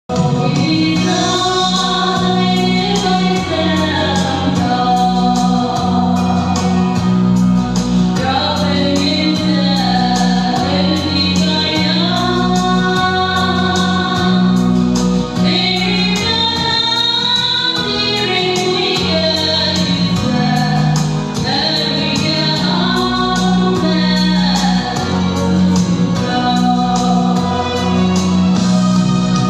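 Two women singing a gospel duet into microphones, amplified through a PA, over an instrumental accompaniment with a steady, moving bass line.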